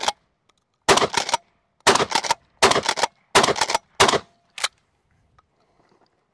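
Rock Island All Gen 12 pump-action 12-gauge shotgun fired rapidly with 7.5 birdshot: five shots less than a second apart, with the pump racked between them, then one last short clack of the action. The gun cycles the whole string without a feeding malfunction.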